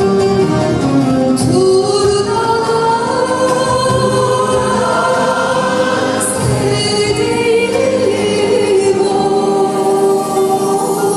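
A woman singing a Turkish folk song (türkü) into a microphone, with a choir singing along behind her; the voices hold long notes.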